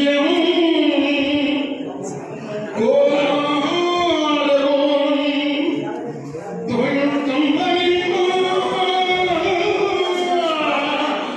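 Kaniyan Koothu troupe singing a folk song together in long held, gliding phrases, with two short breaks for breath.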